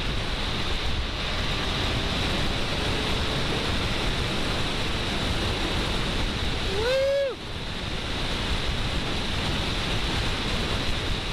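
Steady rush of wind noise over the microphone of a motorcycle riding at highway speed, drowning out the engine. About seven seconds in, a brief pitched sound rises and falls over it.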